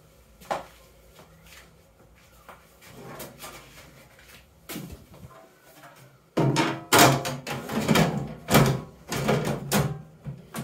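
A microwave oven's sheet-metal outer cover being fitted back over the chassis: a few light knocks at first, then from about six seconds in a run of loud, irregular knocks and rattles as the cover is worked into place.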